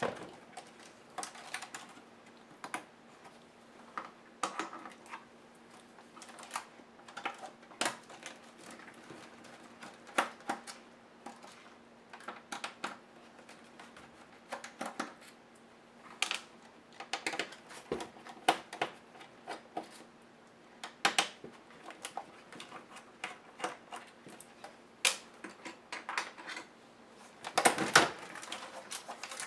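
Irregular small clicks, taps and plastic rattles of a Compaq CQ70 laptop being taken apart by hand, as the display hinge screws are undone with a screwdriver and the display assembly is lifted off the base. The loudest cluster of rattles comes near the end.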